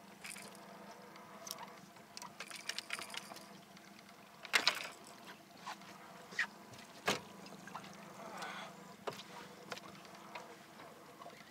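Scattered knocks and clatter of fishing rods and gear being handled in an aluminium boat, with two sharper knocks about four and a half and seven seconds in, over a faint steady hum.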